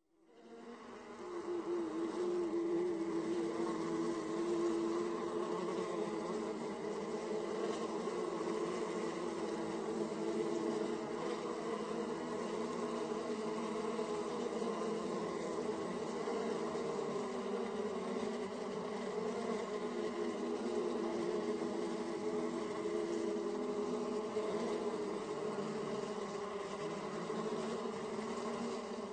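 Buzzing-insects sound effect: a steady, slightly wavering drone of many buzzing wings that fades in over the first couple of seconds and fades out at the end.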